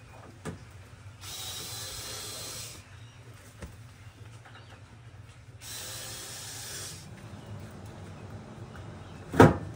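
Cordless drill-driver running in two short bursts of a second or two each, backing out the screws on an air conditioner outdoor unit's panel. A single loud knock follows near the end.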